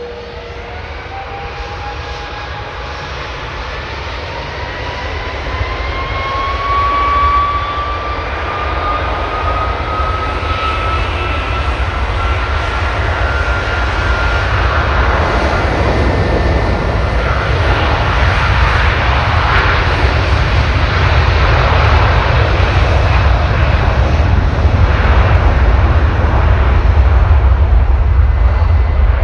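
Airbus A330's Rolls-Royce Trent 700 turbofans spooling up to takeoff power: a whine rising steadily in pitch over the first dozen seconds, then a loud jet roar and low rumble that keeps growing louder.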